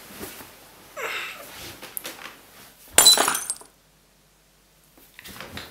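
Bed covers rustling, then about three seconds in a single sharp crack with a glassy clink: a pair of eyeglasses being broken on purpose, faked damage to be passed off as glasses that went out of adjustment overnight.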